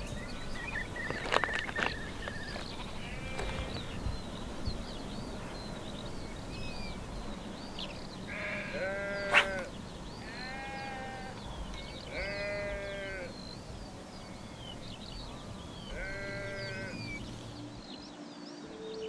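Sheep bleating, four drawn-out calls of about a second each in the second half, with a single sharp click, the loudest sound, in the middle of the first call. High short chirps are scattered underneath.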